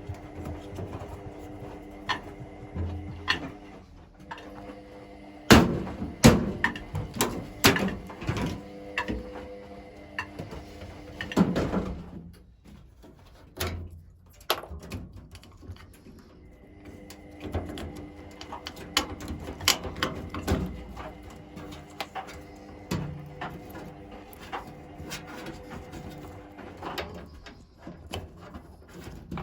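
Irregular knocks, clatters and rattles of panels and parts being handled on a washing machine during dismantling, with a steady low hum underneath.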